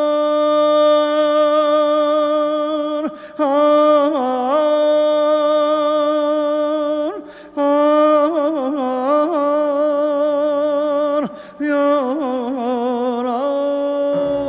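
A male singer's wordless melismatic vocal on "aa" in the Azerbaijani mugham style: long held notes alternating with rapid trilled ornaments, broken by three short pauses for breath.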